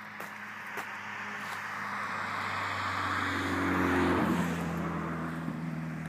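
A motor vehicle passes by, its engine and tyre noise building to a peak about four seconds in, where the engine pitch drops as it goes past, then fading away.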